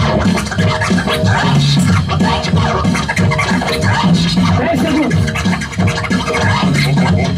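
A DJ scratching a record on a turntable, working the mixer's crossfader: fast, choppy cuts over a hip hop beat with a steady bass line.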